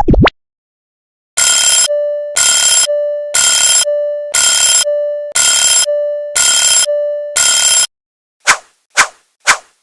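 Cartoon railroad-crossing bell sound effect. It opens with a brief rising sweep, then rings loudly seven times, about once a second, with a steady tone held between the rings. Near the end it changes to a faster run of short, sharp pings, about two a second.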